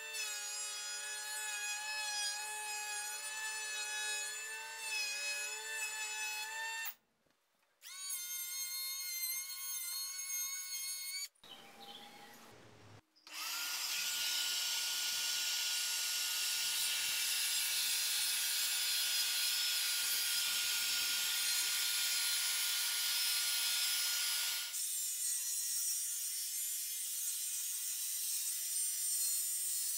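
Cordless electric hand planer running as it trues the edge of a plywood sheet, cut off briefly about seven seconds in and started again. From about thirteen seconds in, a cordless circular saw rips along the 17 mm plywood; it runs more quietly for the last five seconds.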